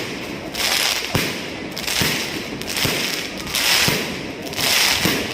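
Fireworks going off: scattered sharp bangs with waves of crackling that swell and fade about every second and a half.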